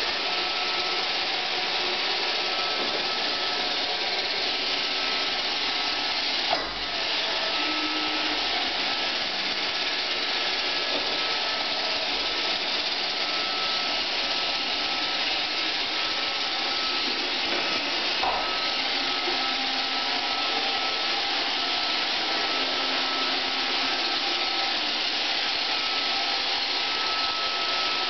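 iRobot Roomba 520 robot vacuum running on a hard laminate floor: a steady whirring of its motors and brushes with a thin steady whine, broken by a short knock about six seconds in and another around eighteen seconds.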